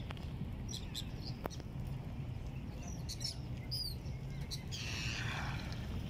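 Seabirds calling with short, high chirps and squeaks over water, above a steady low rumble; a brief rush of noise comes about five seconds in.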